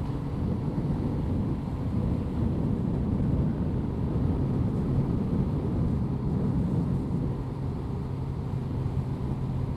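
Honda CBR1100XX Blackbird's inline-four engine running at a steady pace under a low wind rumble, heard through a lavalier mic inside the rider's helmet.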